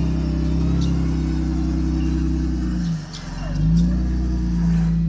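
Off-road 4x4's engine running steadily. Just before three seconds in, its note dips and falls away, then climbs back and levels off within about a second.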